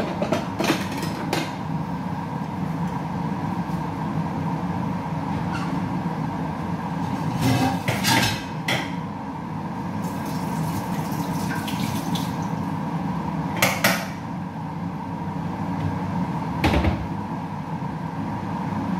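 Dishes and kitchenware clattering now and then as a serving dish is fetched, over a steady kitchen hum. The clatters are loudest about eight, fourteen and seventeen seconds in.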